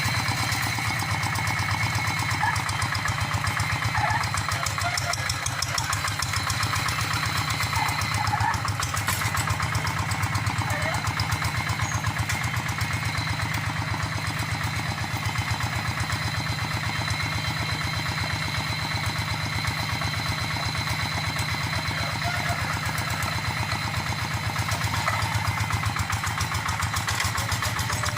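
Tractor engine running steadily while plowing a rice paddy, with a rapid, even firing beat.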